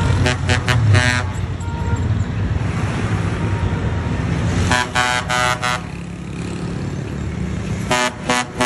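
Bus horn sounding in quick bursts of short toots: about five right at the start, about four around the middle and several more near the end, over a heavy engine running steadily.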